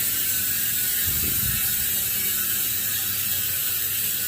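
Paps Pro 1 rear bicycle hub freewheeling, its three-pawl straight-engagement ratchet giving a loud, continuous rapid clicking buzz. It is the noisiest of the hubs tested.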